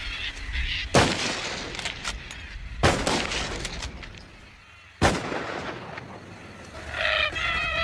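Three high-powered rifle shots roughly two seconds apart, each a sharp crack followed by a rolling echo.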